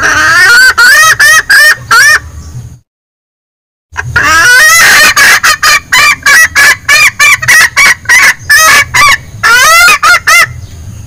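Female junglefowl ('bekikuk') lure call: loud, rapid clucking notes, about four a second. It comes in two bouts, the first a couple of seconds long, then a pause of about a second, then a longer run.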